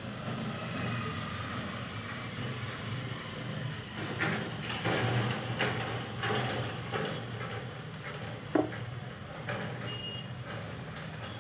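Steady low rumble of background noise, with rustling as fabric and thread are handled and one sharp click a little past halfway.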